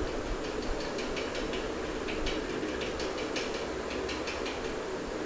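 Flat metal spatula scraping and clicking against a pan as it stirs thick chicken masala gravy, several irregular scrapes a second, over a steady rushing background noise.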